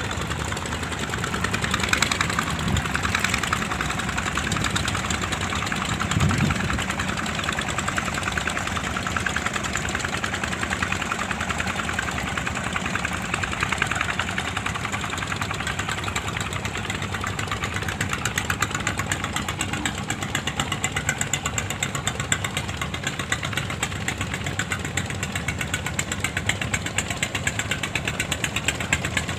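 Engines of small wooden fishing boats running with a steady, rapid putter.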